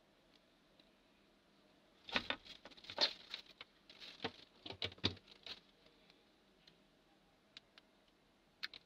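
A 3D printing pen being handled: a flurry of light taps and knocks lasting about three seconds, starting about two seconds in, then a few single clicks near the end.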